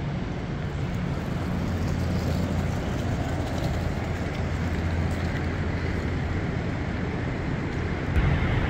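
Steady low mechanical hum from the docked cruise ship's onboard machinery, a constant drone with a noisy outdoor wash over it, growing a little louder near the end.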